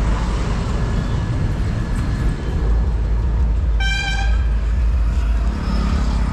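A vehicle horn toots once, a short steady note of about half a second roughly four seconds in, over a steady low rumble of road traffic.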